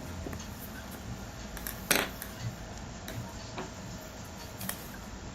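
Small clicks and taps of a flat screwdriver working screws out of a digital multimeter's plastic back case, with one sharper click about two seconds in.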